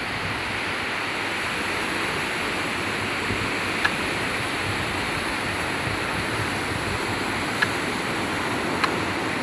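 Steady roar of ocean surf breaking on the shore, with a few faint ticks.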